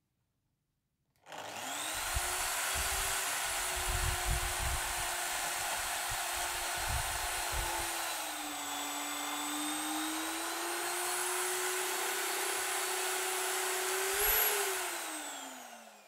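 Electric drill starting up about a second in and boring a hole into a plywood block, with low knocking in the first half as the bit bites. The motor pitch sags under load midway, rises briefly near the end, then falls away as the drill winds down.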